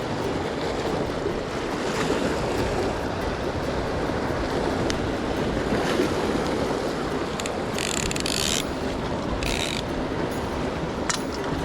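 Sea waves washing against a rocky shore with wind buffeting the microphone, a steady rushing noise. Two short hissing bursts come a little past the middle.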